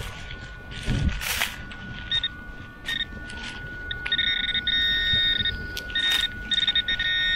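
Handheld metal-detecting pinpointer sounding in short beeping bursts as its tip is worked through loose soil, then sounding almost continuously from about four seconds in as it closes on a buried target. Dirt and dry leaves scrape under the hands about a second in.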